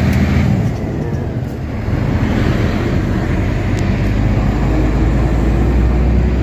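Heavy truck's diesel engine running under way, heard from inside the cab together with tyre and road noise. The engine sound falls back briefly about a second in, then picks up again.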